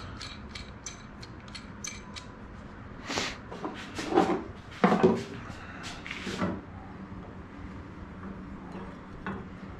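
Rod-holder hardware being handled and fitted by hand. First comes a quick run of light clicks, about four a second. Then, from about three seconds in, several louder scrapes and clunks of hard parts knocking together, which die away after six and a half seconds.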